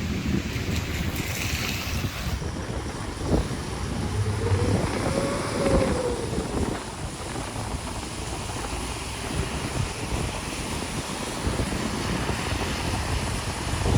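Storm wind buffeting the microphone in a continuous rumbling rush, with a brief tone that rises and falls about five seconds in.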